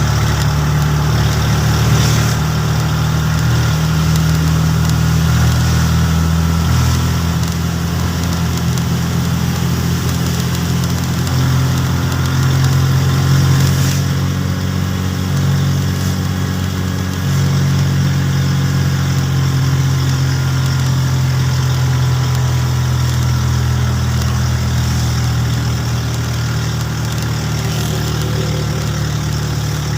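Engine running steadily with a low hum that shifts slightly in pitch a few times.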